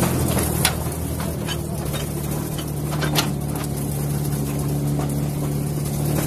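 An engine idling steadily, with a couple of sharp clicks over it.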